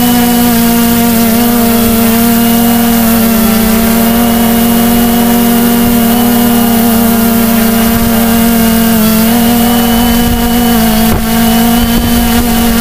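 Electric motors and propellers of a Sky-Hero Spyder 700 multirotor (CD 3536 770 kV motors on 4S) in flight: a steady, loud hum with a strong low tone and a stack of higher overtones, dipping slightly in pitch about nine seconds in and again near eleven seconds.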